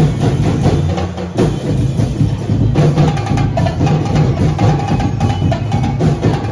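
Street-dance festival music driven by heavy drumming and percussion in a steady rhythm, with a held melodic note joining about three seconds in.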